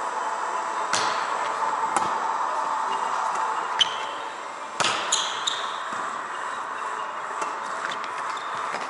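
Volleyball being served and played in a rally in a large sports hall: a series of sharp slaps of hands and forearms on the ball, several clustered around the middle, over a steady hall background.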